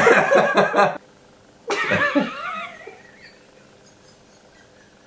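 Two people laughing: a loud burst of laughter in the first second, then a high, wavering laugh about two seconds in that fades away.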